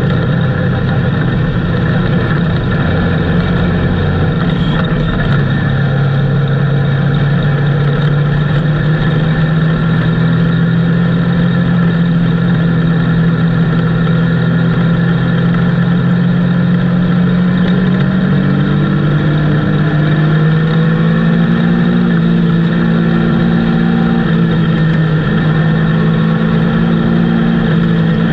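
Dirt-track race car engine at racing speed, heard from inside the cockpit: a loud, steady engine note that climbs in pitch about two-thirds of the way through and eases off slightly near the end.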